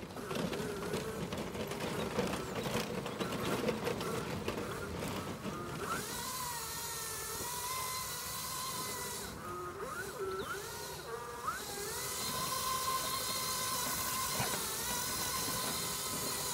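Electric drive motor of a four-wheeled mobility scooter whining as it drives over grass, its pitch rising and falling with speed changes. For the first several seconds a crackling, clicking noise covers it.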